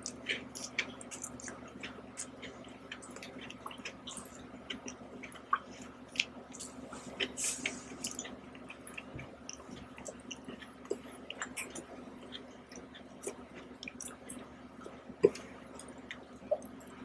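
Close-miked chewing and wet mouth sounds of Oreo cookies and ice cream being eaten, with small irregular clicks and squishes. A sharp click about fifteen seconds in is the loudest sound.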